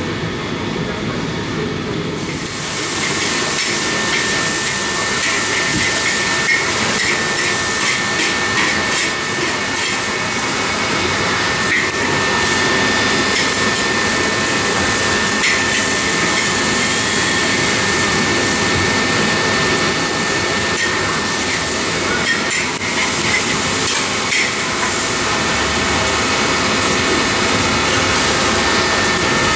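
Wok frying of char kway teow noodles: a steady sizzling hiss with frequent clanks and scrapes of a metal ladle against the wok, setting in about two and a half seconds in after a duller background hubbub.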